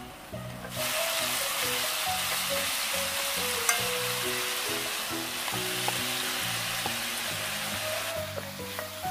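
Thin slices of pork neck sizzling as they are stir-fried in a hot pan while their released juices cook down. The sizzle comes in about a second in and drops away near the end.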